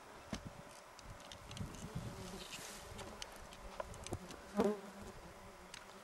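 Flies buzzing around the microphone, one passing close and loud with a wavering buzz about four and a half seconds in. Faint scattered clicks sit under the buzzing.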